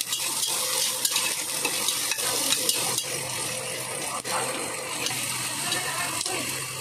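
Sliced onions sizzling in hot oil in a pressure cooker pot, stirred with a metal spatula that scrapes and clicks against the pot's bottom and sides.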